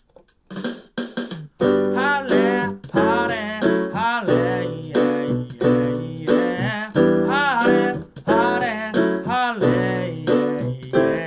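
Electronic keyboard playing the instrumental intro of a pop song. It opens with a few short percussive hits, then the full chords and a repeating melodic figure come in about a second and a half in.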